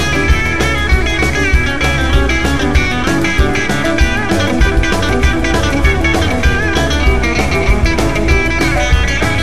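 Live rockabilly band playing, led by a chicken-picked (hybrid-picked) electric guitar with twangy string bends over a steady drum beat.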